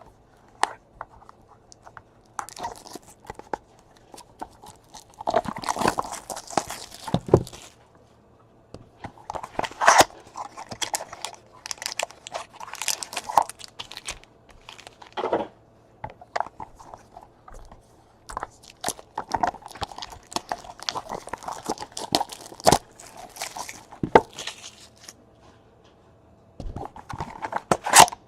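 Trading card packaging and cards being handled: irregular rustling, crinkling and tearing with sharp clicks and cardboard scrapes, in bursts separated by short pauses, as boxes and packs are opened.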